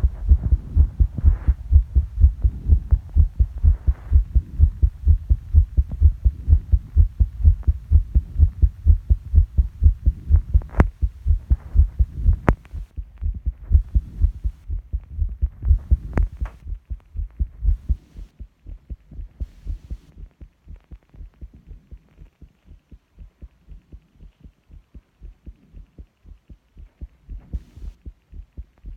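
Heartbeat picked up by a microphone on the chest: a quick, steady run of deep thuds, strong for most of the first two-thirds, then clearly quieter from about eighteen seconds in. A few sharp clicks stand out in the middle.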